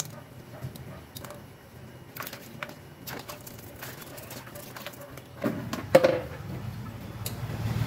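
Handling and scrubbing a live crab's shell with a toothbrush over a plastic basin: scattered small clicks and scrapes, with a louder knock about five and a half to six seconds in as the crab meets the basin. A low rumble builds near the end.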